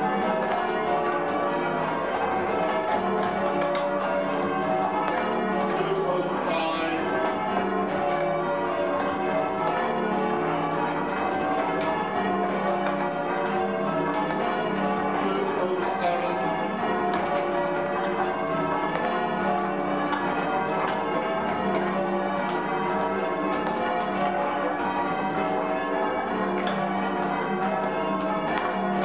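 Change ringing on a restored ring of church bells, heard from the ringing chamber below the belfry: a continuous, even stream of overlapping bell strikes as the bells swing full circle in turn.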